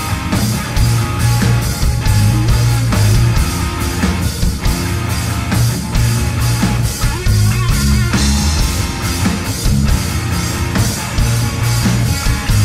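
Live rock band playing loudly: distorted electric guitar, heavy bass and a driving drum kit with steady cymbal hits.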